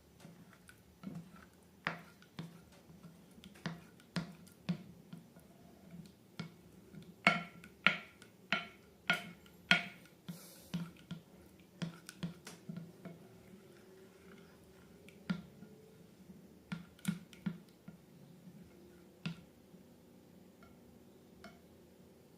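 Slime being squeezed and worked by hand, making irregular sharp sticky clicks and pops, about one or two a second, loudest in a quick run around the middle.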